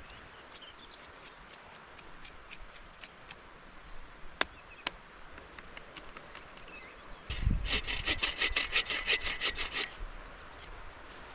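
Hand saw cutting wood: a quick run of rapid back-and-forth strokes lasting about two and a half seconds, starting a little past the middle. Before it there are scattered light clicks.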